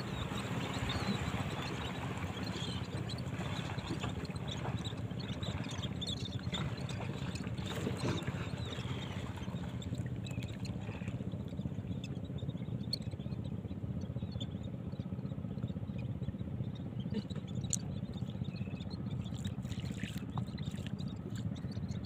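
Small fishing boat's engine running steady and low, with faint seabird calls and water noise over the first half.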